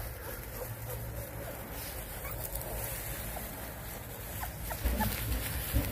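Young 18-day-old Lycan Shepherd puppies giving a few short, faint squeaks and whimpers as they move about in shredded-paper bedding, with the paper rustling. A couple of low thumps near the end.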